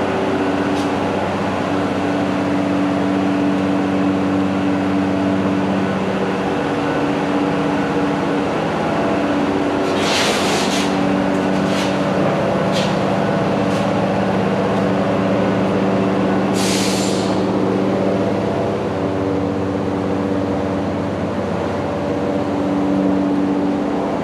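Background music of long held chords that change every few seconds, with two short hissing swells about ten seconds in and again near seventeen seconds.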